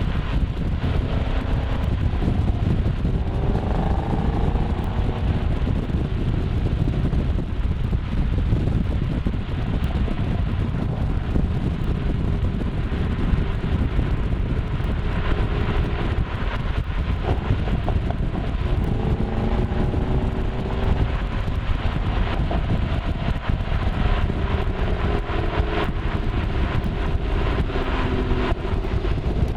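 Ford Mustang Shelby GT500's V8 engine and exhaust while driving. The engine note rises, holds and falls several times as the car accelerates and shifts, over a steady rumble of road and wind noise.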